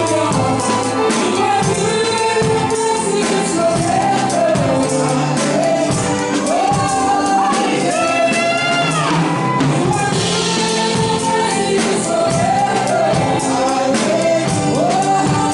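Live gospel worship music: voices singing a melody over a band of drum kit and keyboard, with the drums keeping a steady beat.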